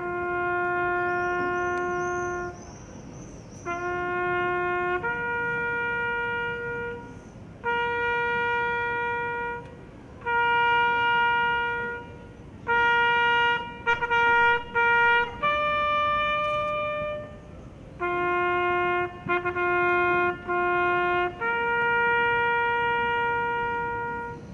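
Solo trumpet playing a slow military call in long held notes, with a few quick repeated notes, ending on a long final note: the call sounded in honour of the fallen at a wreath laying.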